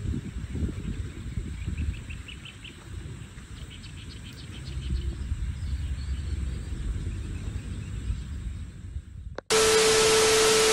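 Wind buffeting the microphone outdoors, with a bird giving faint quick series of chirps. About nine and a half seconds in, it cuts suddenly to a loud TV-static hiss with a steady beep tone.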